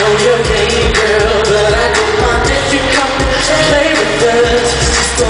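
Live pop music played over a concert sound system: a backing track with a steady beat and a male singer's amplified vocals.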